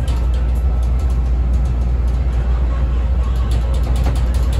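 Inside a CTA 5000-series rapid-transit car running at speed: a steady, heavy low rumble from the wheels and running gear, with scattered light clicks over it.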